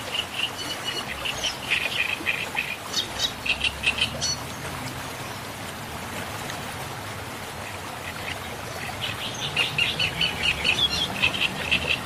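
Bird chirping in two bouts of quick, repeated short calls over a steady hiss.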